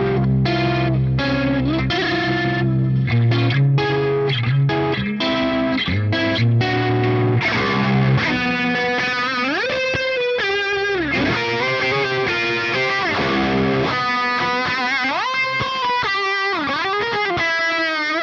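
Electric guitar through effects with distortion, playing a solo with an unusual tone: short, choppy notes over low notes at first, then from about eight seconds in long sustained notes that glide widely up and down in pitch.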